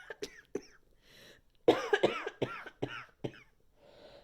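A woman coughing: a fit of several coughs in quick succession starting about a second and a half in. It is a chest cough from an illness of the lungs.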